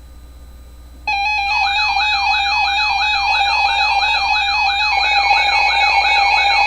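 Weather alert radio's electronic alarm set off by an incoming NOAA warning broadcast, here a flood warning. It starts abruptly about a second in as a siren-like falling sweep, repeating about three times a second over a steady tone.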